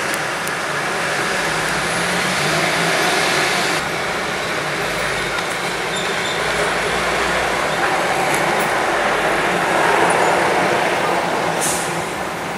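Vintage Chevrolet pickup hot rod's engine running as it crawls along in slow street traffic, mixed with the steady noise of the surrounding traffic, with a short hiss near the end.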